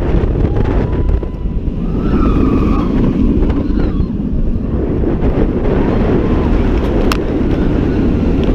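Wind rushing over the on-ride camera's microphone as a Bolliger & Mabillard wing coaster train runs through its elements at speed, with the train's steady rumble on the track. A single sharp tick comes about seven seconds in.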